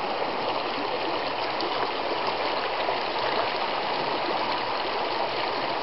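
Creek water running, a steady, even rush of flowing water.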